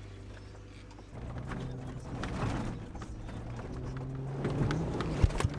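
Off-road vehicle's engine running from inside the cab, its hum getting louder about a second in, with irregular knocks and rattles as the vehicle jolts over rough ground and a sharp thump about five seconds in.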